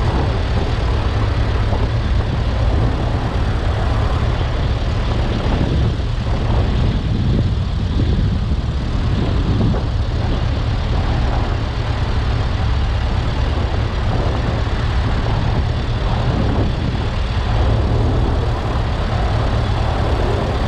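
Ferguson tractor engine running steadily, with a strong low engine note.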